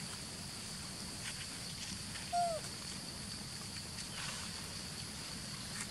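Steady high insect drone with a single short animal call about halfway through, pitched and falling in pitch. Faint rustling in the grass now and then.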